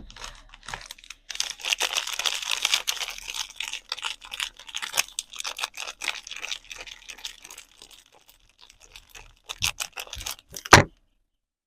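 Soap packaging being unwrapped and torn open, with dense crinkling and crackling, busiest in the first few seconds. Near the end come a few taps and one sharper knock.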